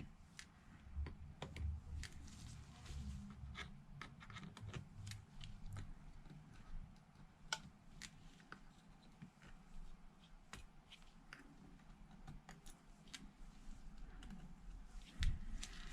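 Faint, scattered clicks and ticks of a manual precision Phillips screwdriver and tiny screws being worked out of a smartphone's midframe by hand, the screws stiff and stuck.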